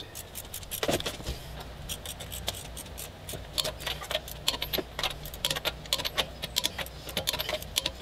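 Ratchet wrench clicking in short bursts, with metallic clinks of the socket, as the lug nuts on a truck's front wheel are tightened by hand after the wheel is refitted.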